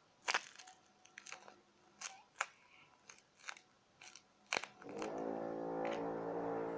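Paper squishy stuffed with bubble wrap being squeezed and handled: scattered crinkles and crackles of paper and plastic. About five seconds in, a steady held tone with many overtones begins.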